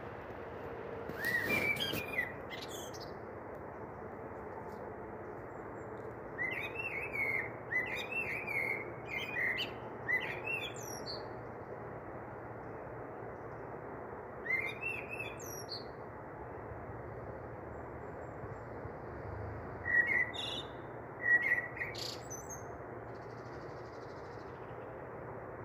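Birds chirping in short scattered bursts over a steady background hiss, with a few sharp clicks near the start.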